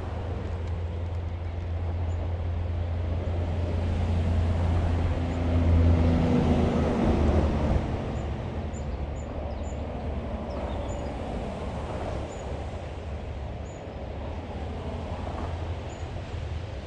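Traffic rumble from a nearby highway, swelling as a heavy vehicle passes about six seconds in, then easing back to a steady drone.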